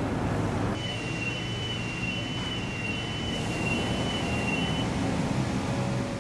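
Steady outdoor noise of wind and distant traffic. From about a second in to near five seconds, a high electronic beep alternates between two close pitches.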